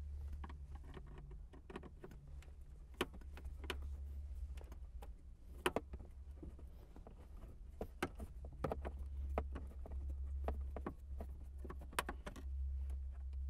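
Phillips screwdriver backing out the screws under the radio trim of a Honda Accord dash: irregular small clicks and ticks of the tip and screws against the plastic trim, a few sharper ones, over a steady low rumble.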